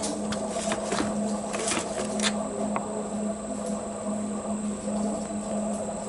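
A steady machine hum, like a small motor or fan, with a few sharp clicks and light knocks in the first three seconds.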